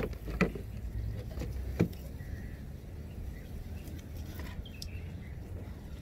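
A low steady rumble, like distant traffic, with a couple of sharp clicks about half a second and just under two seconds in, and faint rustling from people working in tall grass.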